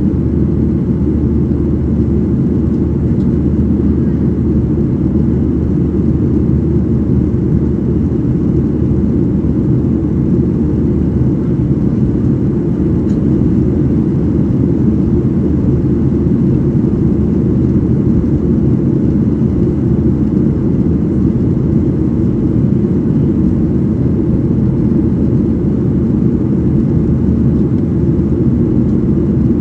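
Steady, deep cabin noise of a Boeing 737-800 climbing after takeoff: its CFM56-7B turbofan engines and the rushing airflow, heard from a window seat over the wing.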